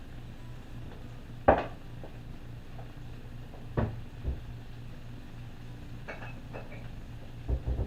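Pots, pans and utensils knocking and clinking during kitchen cleanup: a loud knock about a second and a half in, then scattered clinks and knocks, a few close together near the end, over a steady low hum.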